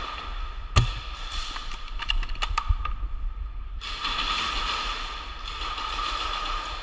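A single sharp shot from an airsoft sniper rifle about a second in, then a few lighter clicks, over a steady background hiss.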